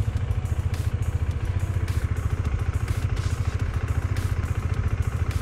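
KTM 390 Adventure's single-cylinder engine running at low revs, a fast, even low beat, as the bike crawls over fresh snow. Scattered sharp clicks come through on top.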